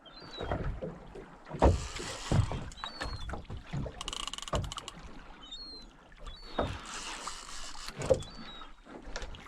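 Sea water rushing and slapping against a small fishing boat's hull, with knocks and creaks from the boat. A quick run of clicks comes about four seconds in, and there are a few short high chirps.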